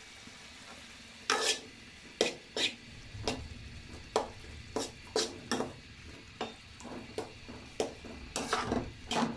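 A spoon scraping and knocking against a cooking pot as mashed potatoes are added to chickpeas cooking in spiced gravy and stirred in, over a faint sizzle. The knocks start about a second in, come irregularly one or two a second, and crowd together near the end.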